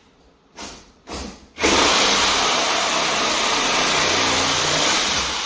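Handheld power tool: two brief bursts, then the motor starts abruptly and runs loudly at full speed with a high whine for about three seconds before it is released near the end and begins to wind down.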